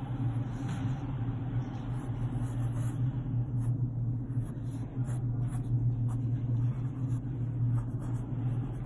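A steady low hum, with the faint scratch of a wooden pencil drawing lines on paper in short strokes, more often from about three seconds in.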